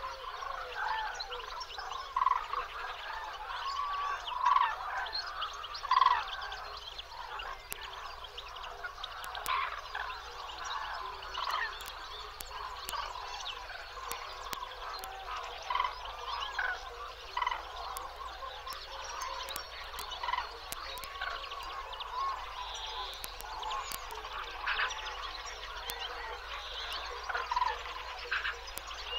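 A wetland chorus of many birds calling at once: short, curling calls overlap without a break, and a few louder ones stand out near the start and around six seconds in.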